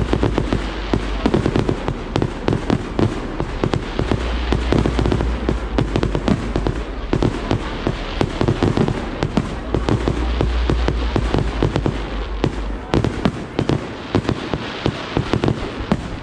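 Fireworks display going off in a dense barrage: many rapid bangs and crackles several times a second, running on without a break, over a steady low rumble.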